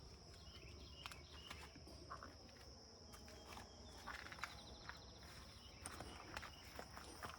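Faint ambience with a steady, high-pitched insect trill, likely crickets, and scattered light clicks and knocks.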